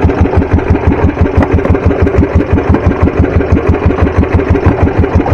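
Small fishing boat's engine running steadily at sea, with an even, fast putter of about six beats a second.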